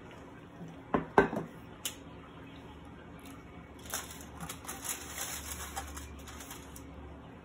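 Eating sounds: sharp crackles about a second in as a slice of crisp flatbread is lifted off a foil-lined plate, then a few seconds of crunchy chewing close to the microphone.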